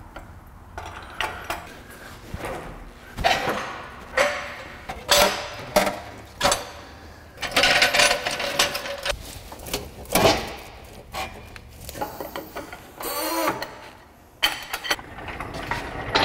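Irregular metallic clanks, knocks and scrapes as an engine is lifted out of a 2005 Honda Element's engine bay on a hydraulic engine hoist and worked clear of the surrounding parts.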